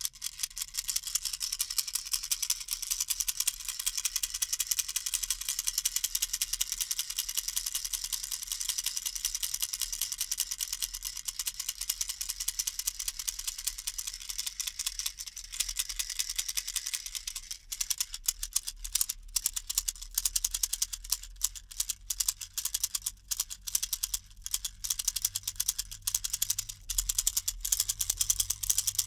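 Handheld baby rattle shaken continuously: a fast, dense rattling. About seventeen seconds in, the shaking turns uneven, with separate clatters and brief gaps.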